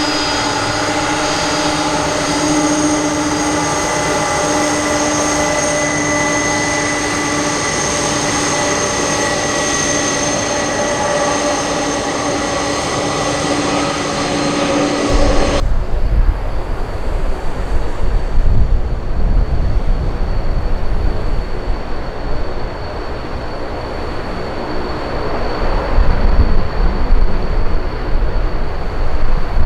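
Aircraft engine noise: a steady whine with several held tones for about fifteen seconds, then an abrupt cut to a louder, deep rumble.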